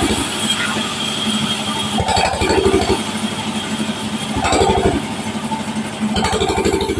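Sawmill band saw running and ripping a long timber lengthwise, with the machine's low pulsing drive rumble underneath; the cutting noise swells and eases every second or two as the wood is pushed through the blade.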